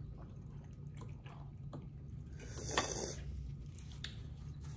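Faint wet eating sounds: a fork working through sauce-soaked enchiladas on a plate, with a brief scrape and a click a little before three seconds in.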